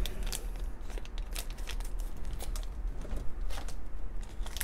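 Small foil blind bag crinkling and tearing as it is worked open by hand: irregular short crackles, clustering a little near the end.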